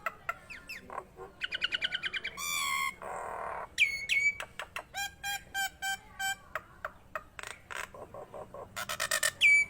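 Nias hill myna singing a rapid, varied string of sharp clicks, rattling trills and whistles, with a harsh rasp about three seconds in and loud whistled notes around four seconds in and again near the end.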